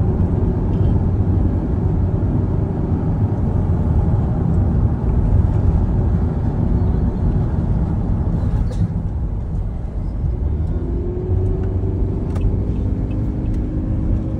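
Steady road and engine noise inside the cabin of a moving taxi: a low rumble, with a faint whine that rises in pitch about eleven seconds in as the car picks up speed.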